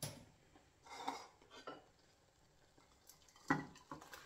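A stainless steel saucepan and a metal spoon knock and clink against each other and against the bowl as cooked noodles are tipped out of the pot. There are a few separate clanks, and the sharpest comes about three and a half seconds in.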